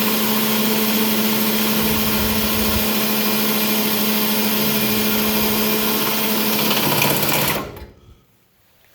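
Handheld electric power tool running steadily on metal, with a constant motor hum. It cuts off about seven and a half seconds in and quickly winds down.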